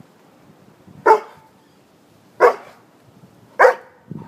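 Large dog barking three times, about a second apart, sharp single barks at a squirrel.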